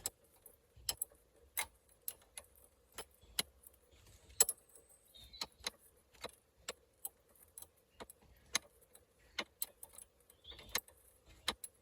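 Sharp metallic clicks, irregular at roughly two a second: a spanner being worked and refitted on a drop link nut, a few degrees at a time, without a ratchet.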